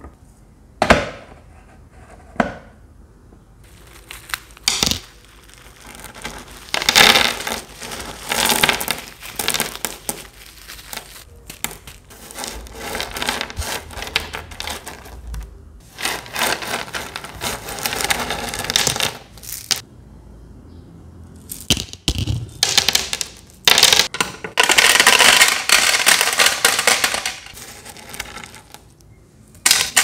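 Small decorative gravel pebbles clattering and clicking as they are tipped out and dropped into a clear plastic desktop aquarium, with a plastic bag crinkling. Irregular rattles and clicks, with a few longer stretches of rustling and pouring.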